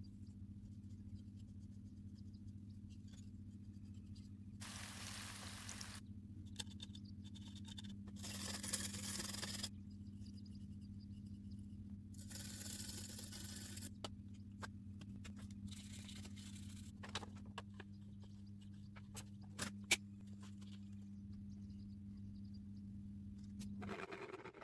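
Several separate scraping or brushing strokes, each a second or two long, and a few sharp clicks, over a steady low electrical hum that cuts off near the end.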